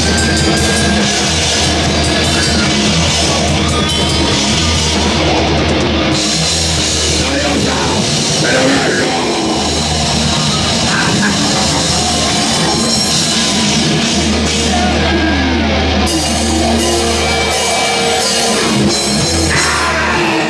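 Live metal band playing loud: distorted electric guitars, bass and a drum kit, with a heavy, steady low end. The music cuts off right at the end.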